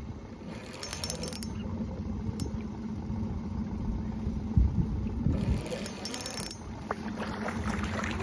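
Small boat motor running steadily at trolling speed, with a light clinking and clattering of metal in the aluminium boat about a second in and again near six seconds, and a dull knock between them.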